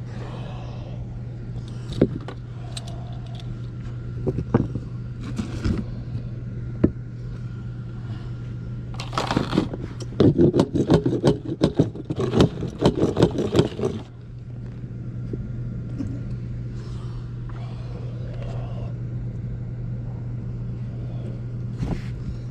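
Hands-on work on drain fittings over a steady low hum. A few sharp clicks and knocks come first. From about nine to fourteen seconds in there is a loud run of rapid scraping strokes.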